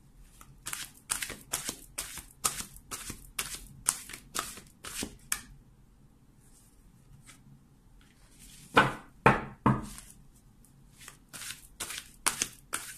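A deck of pink-backed oracle cards being shuffled by hand: a quick run of papery card slaps, about four a second, for the first five seconds or so, then a pause. Three louder taps about nine seconds in, then the shuffling starts again near the end.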